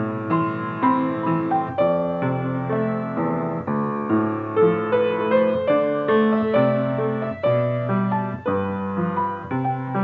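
Solo piano music: a melody over sustained low notes, with several notes struck each second.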